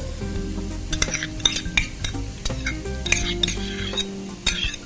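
A metal spoon clinking and scraping in an irregular string as sauce is spooned from a bottle into a non-stick wok, over onions and capsicum sizzling in oil.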